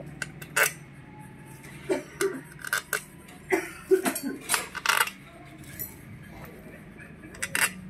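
Metallic clinks and taps of small steel bolts and hand tools being picked up and set down while crankcase bolts are fitted into a scooter engine's aluminium case. There is a quick run of clinks in the first five seconds and a couple more near the end.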